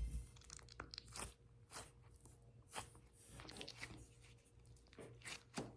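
Faint, scattered crackling and rustling as a fuzz-ball NeeDoh toy is unwrapped from its packaging and handled.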